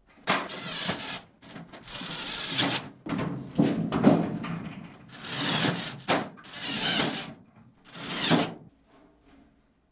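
Rectangular galvanized sheet-metal duct being handled and turned over on a concrete floor: about six scraping, rubbing swells of noise, each around a second long.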